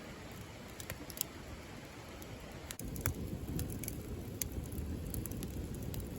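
Campfire crackling: scattered sharp pops and snaps over a steady low rumble, which gets louder about three seconds in.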